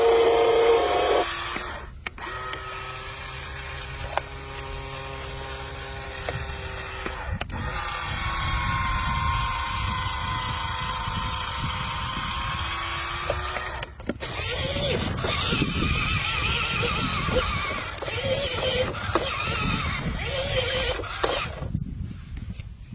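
Animated construction-vehicle sound effects: engines running with machine whines, in segments that switch abruptly about 2, 7½ and 14 seconds in, one whine dipping and rising in pitch. Near silence just before the end.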